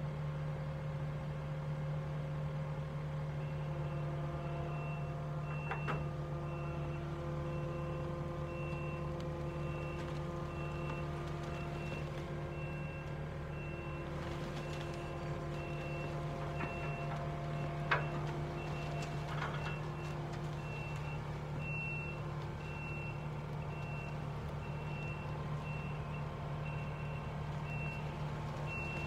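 Skid steer's engine running steadily under load while its reversing alarm beeps over and over as it backs up, dragging the old Massey Ferguson loader out on a chain. A single sharp clank a little past halfway.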